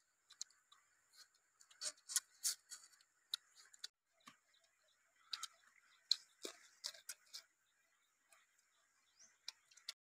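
Close-up eating sounds: irregular lip smacks and crisp chewing clicks from people eating fish and a raw green vegetable by hand, busiest about two seconds in and again between five and seven and a half seconds. A faint steady high-pitched hum runs underneath.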